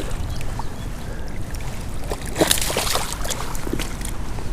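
Steady rush of flowing river water, with a cluster of splashes around the middle.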